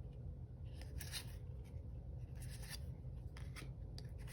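Trading cards being handled: a few soft brushing swishes of cards sliding against each other, with small clicks near the end, over a faint low hum.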